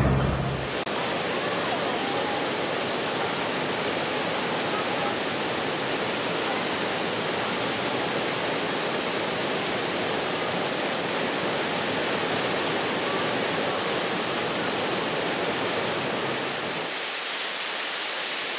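Waterfall pouring over rocks: a steady rush of falling water.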